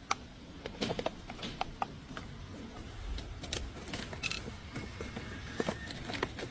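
Irregular mechanical clicks and knocks over a low rumble.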